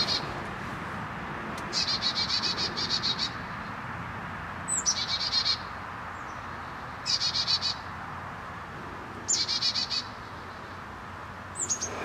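Carolina chickadee giving its chick-a-dee call: short bouts of rapid, buzzy high notes, some opened by a thin note sliding down, repeated about every two and a half seconds, five times, the last starting near the end. A faint steady hiss lies underneath.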